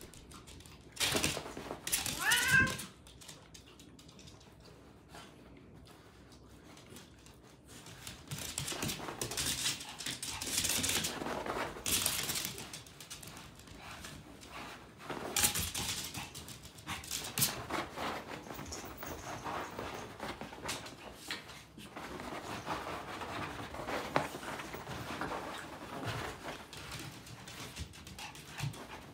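Domestic cat meowing, a short call about two seconds in, then scattered scuffles and light knocks of small animals moving about on a wooden floor and futon mat.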